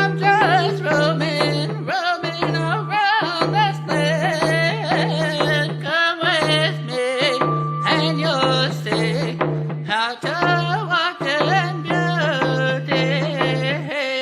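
Music with a singing voice, its melody bending and wavering in ornamented runs over a steady low drone.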